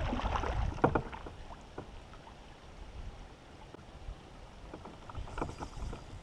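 Kayak paddle stroking the water and knocking against the kayak hull, with a sharp knock about a second in, followed by scattered light taps and a few more knocks near the end.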